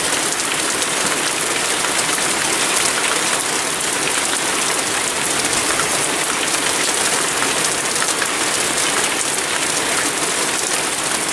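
Heavy rain pouring down steadily, a dense even hiss of drops striking the roofs and ground.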